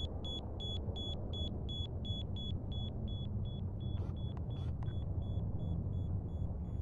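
A high electronic beep repeating about three times a second, growing fainter, over a steady low rumble, with a few faint clicks about four seconds in.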